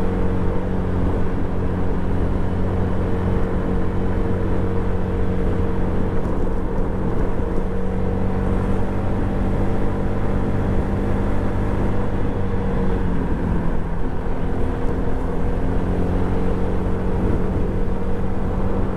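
Suzuki Address 110 scooter's engine running steadily while riding. Its note sags a little past the middle and picks up again.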